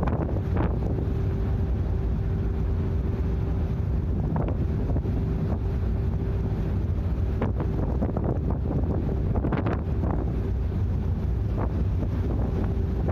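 Drift-ice sightseeing icebreaker under way: a steady low rumble of the ship with wind buffeting the microphone and a faint steady hum. A few short knocks stand out, about half a second in and again around the middle.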